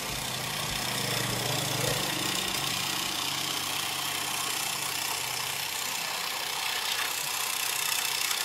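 An electric motor spinning a car alternator through a belt on a homemade generator rig: a steady mechanical whir with a hiss, and a lower hum that fades about two-thirds of the way in.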